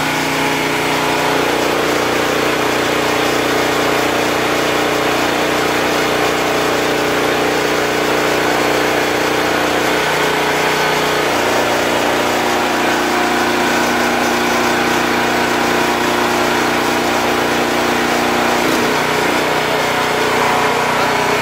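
Small single-cylinder gasoline engine of a 50-ton hydraulic log splitter running steadily. Its note changes as the hydraulic pump takes load: once while the ram pushes out, from about a second and a half in to about ten seconds, and again while it draws back, until near the end.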